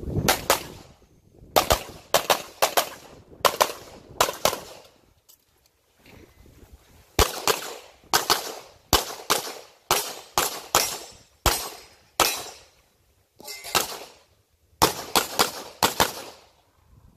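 A rapid string of handgun shots, about thirty in all, mostly fired in quick pairs. There is a break of about two and a half seconds about a third of the way in, after which the firing resumes.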